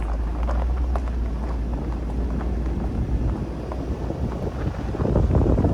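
Car driving along: steady low road rumble with scattered small clicks and rattles, swelling louder near the end.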